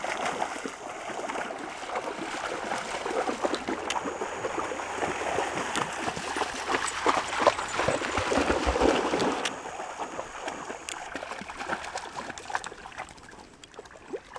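Water splashing and trickling as a Shetland Sheepdog and other dogs wade and run through shallow lake water, in irregular splashes. It drops off about nine and a half seconds in and fades away.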